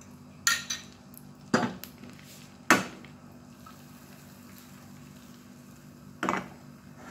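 Sharp clinks of a mixing bowl knocking against a frying pan as beaten egg is poured in: three knocks about a second apart in the first three seconds and one more near the end, over a faint steady hum.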